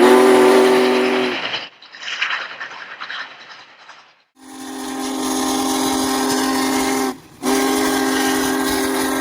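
Steam locomotive whistle: the end of one long blast, a few seconds of hissing steam, then two more long, steady blasts with a short break between them.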